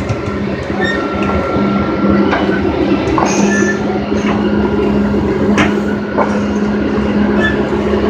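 Scrapyard magnet crane unloading scrap metal: a steady engine hum under clanking and scraping of metal on metal, with short metallic squeals.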